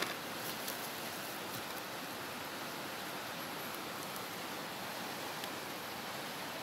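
Steady rushing of a fast-flowing river, with a few faint clicks near the start.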